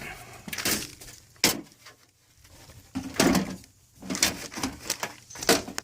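A few separate knocks, clicks and scrapes of objects being handled and moved, with a sharp click about one and a half seconds in.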